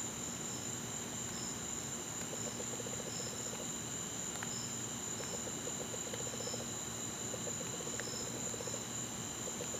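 Night chorus of crickets: a steady high-pitched trill with short chirps repeating over it about once a second, and a lower pulsing trill that comes and goes in the middle.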